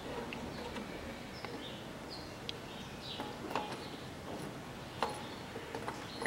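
Faint scattered clicks and light metallic taps as a replacement water pump is fitted against the engine block and its bolts are started, with a few short high chirps among them.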